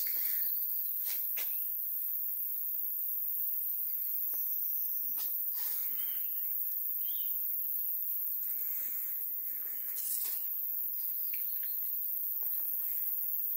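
Rural outdoor ambience: a steady high-pitched hiss with a few faint, scattered bird chirps.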